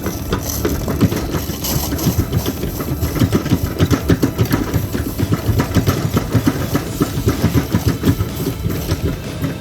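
Diesel engine of a Cat 308 mini excavator running at a steady, even level.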